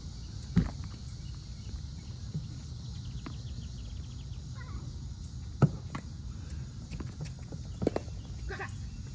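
Tennis balls struck by racquets and bouncing on a hard court: a few sharp pops, the loudest about half a second in and again midway, with a quick pair close together near the end. Two brief squeaks come in between, over a steady low rumble and hiss.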